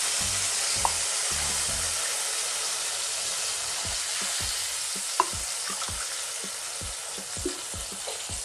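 Hot oil and moong dal in a pan sizzling as water is poured in from a steel tumbler; the sizzle slowly fades as the water cools the pan. Two sharp clicks, about a second in and about five seconds in.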